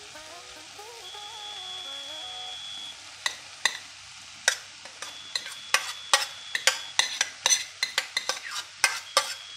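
Vegetables sizzling in a frying pan as cooked quinoa is tipped in from a stainless steel saucepan. From about three seconds in there is a run of sharp clicks and knocks, coming faster toward the end.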